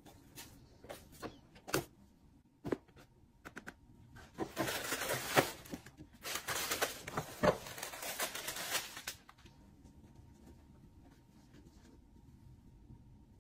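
Paper shopping bag and tissue paper rustling and crinkling as clothes are unpacked by hand: scattered light taps and rustles at first, then about four and a half seconds of dense crinkling starting about four seconds in.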